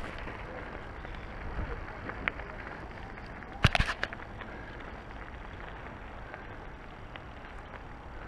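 Mountain bike rolling over concrete: a steady low rumble of tyres and wind, with a sharp click about two seconds in and a short rattling clatter a second and a half later.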